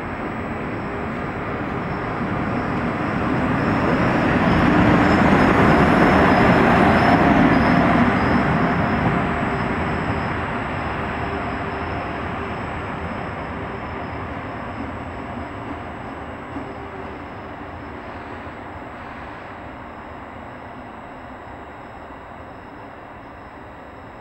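FS Class E656 electric locomotive running light past, its noise with a steady hum growing louder to a peak about five to eight seconds in, then fading slowly as it draws away.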